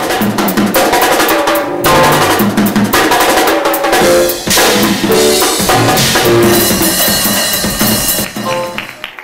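Music with a prominent drum kit beat (bass drum, snare and rimshots) under pitched instruments, dropping away near the end.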